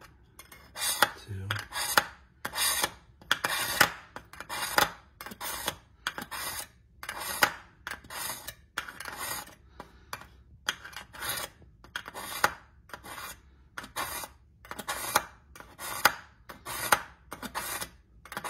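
A steel kitchen-knife blade drawn again and again through the coarse carbide slot of a KitchenIQ Edge Grip two-stage manual sharpener. Each stroke is a short scrape, about two a second, as the dull edge is ground back.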